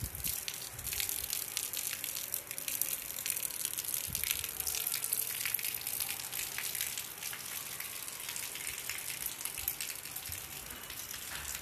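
Steady rain falling on a flat concrete rooftop and its puddles: a dense hiss made of countless small drop taps.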